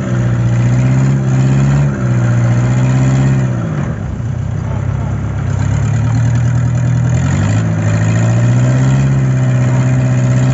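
Fishing boat's engine running loudly, its speed dipping about two seconds in and again near four seconds, then picking back up about seven seconds in.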